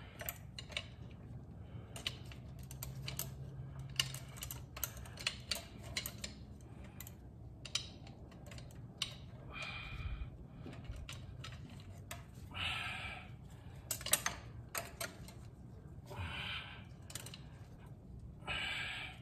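New Barnett Kevlar friction discs and steel clutch plates being stacked onto the clutch hub of a Harley-Davidson Road Glide, giving many light, irregular metallic clicks and clinks. A few short breaths sound between them.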